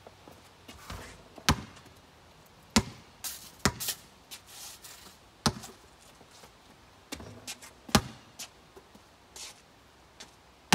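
A basketball thudding as it bounces on the ground and hits the backboard: about half a dozen sharp, irregularly spaced impacts.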